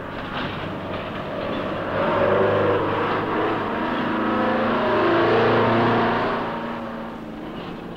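Diesel tractor-trailer truck running along a highway. Its engine grows louder from about two seconds in, then fades away near the end as it passes.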